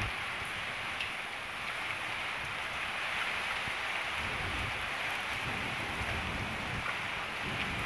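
Heavy rain pouring steadily, with gusts of wind that rise and fall in a low rumble.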